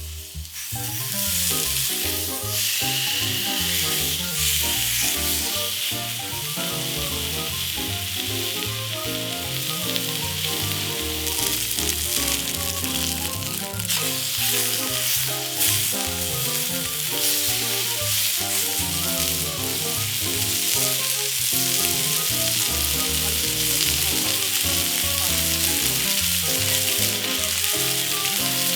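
Food sizzling steadily as it fries in a hot pan, with background music underneath.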